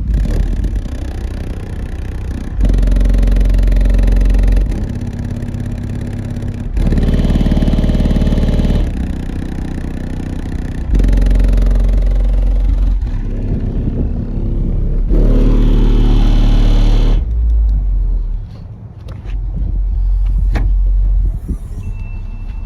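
Single 10-inch subwoofer in a 4th-order bandpass enclosure playing a song, heavy deep bass swelling into loud hits about every four seconds.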